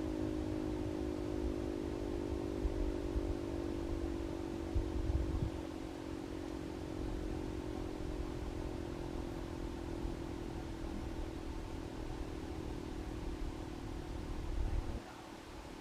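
1938 Sachsenwerk L234 air-raid siren winding down: several tones together slide slowly lower and fade as the rotor coasts. A low rumble underneath cuts off suddenly near the end.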